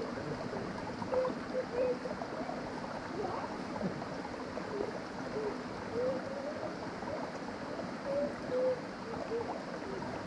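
Creek water running over rocks, a steady rush with frequent small gurgles.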